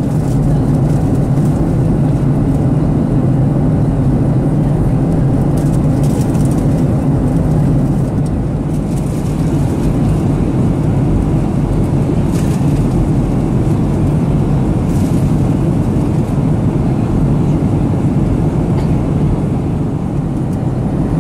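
Steady in-flight cabin drone of a Boeing 737-800, heard from inside the cabin: the CFM56-7B engines and airflow making an even, low rumble that holds level throughout.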